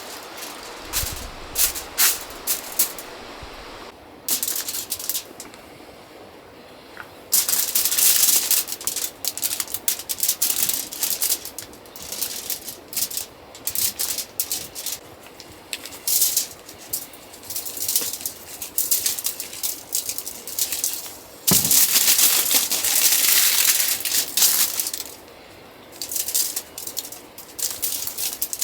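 Irregular small clicks and rattles, with two longer stretches of loud rustling or scraping, as of things being handled.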